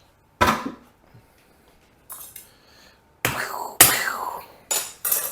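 Kitchen utensils and pans clattering: a series of sharp knocks and clinks, the loudest about four seconds in, some with a short ringing tail.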